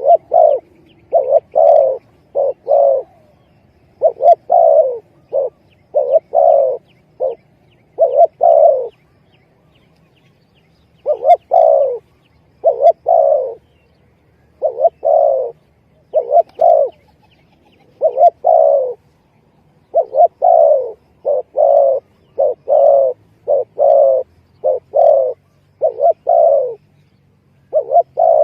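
Spotted dove (tekukur) cooing over and over in phrases of short and drawn-out coos, with a brief pause about ten seconds in. This is the dove's call used as a lure to draw wild doves in.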